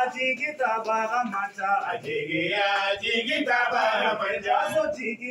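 A man singing in a chanting style, holding long notes between short breaks.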